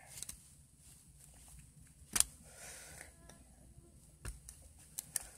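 Mostly quiet handling noise: a few short, sharp clicks and knocks, the loudest about two seconds in and another a little after four seconds, with fainter ticks between.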